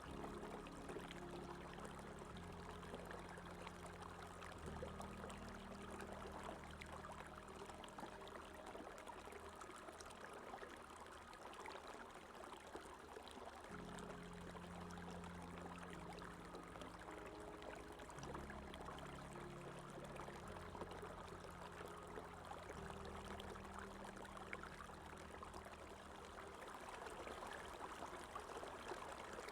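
Steady flow of running water, a stream, with soft background music underneath: slow, held low chords that change every few seconds.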